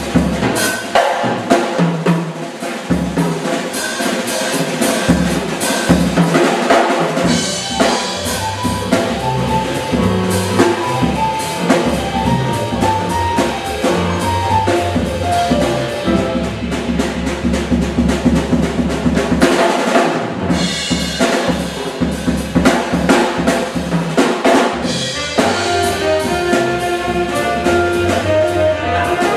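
Live jazz quartet music with the drum kit to the fore: busy snare, bass drum and cymbals over a walking bass line, with melodic notes from the other instruments in places.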